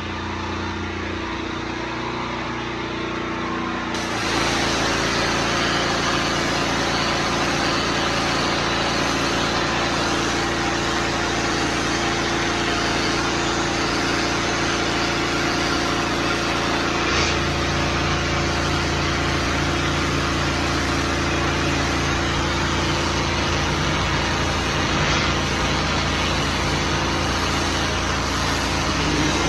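Small gasoline engine running steadily, with a constant rushing hiss over it; the sound shifts abruptly about four seconds in and its low hum changes again around seventeen seconds.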